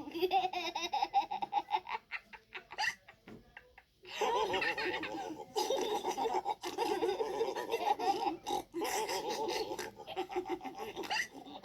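High-pitched voices laughing and giggling in quick pulses. The laughter breaks off for about two seconds near the start, then picks up again and runs on.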